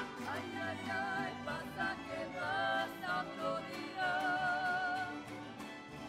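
Mariachi music: voices singing in harmony with wavering held notes over strummed guitars, with one long held note about four seconds in.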